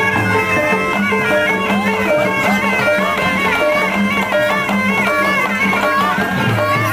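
Traditional Betawi music accompanying ondel-ondel puppets: a sliding, wavering melody over a steady low drone, playing continuously.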